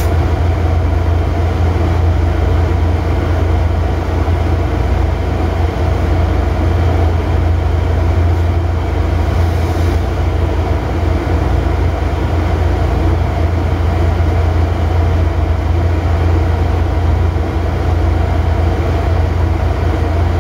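DF200 diesel-electric locomotive's diesel engine running steadily, heard from inside its driving cab as a loud, even, low hum.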